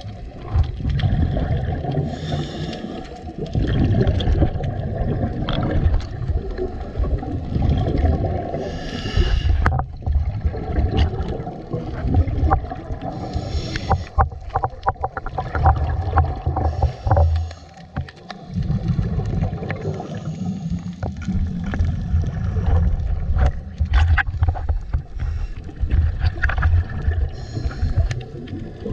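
Underwater sound picked up through an action camera's waterproof housing: a steady low rumble with frequent knocks and clicks from handling, and a short bubbly hiss every few seconds.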